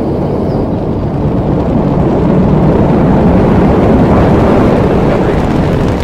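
Rocket noise of Space Shuttle Discovery in ascent, its two solid rocket boosters and three main engines burning: a loud, steady, dense rumble that builds a little louder about four seconds in.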